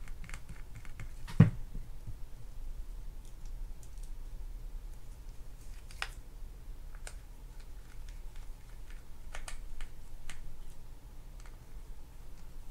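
Small metal clicks and taps from a precision screwdriver working a screw on a Daiwa Sealine conventional reel's side plate, with one sharper click about a second and a half in.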